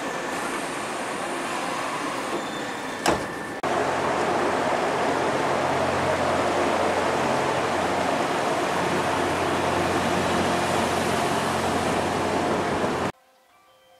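Train noise: a steady rumble beside a JR 115-series electric train at a platform, a sharp click about three seconds in, then a louder steady rumble of a train running at speed, heard from inside the carriage. The sound cuts off abruptly near the end.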